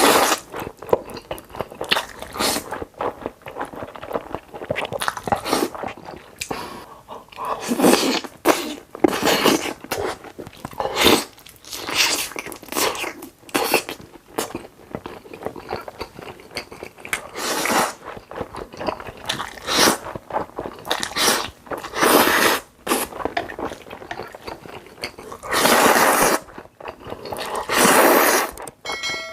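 Close-up eating sounds: a person biting and chewing crunchy food, with many irregular crisp crunches and a couple of longer crunching bursts near the end.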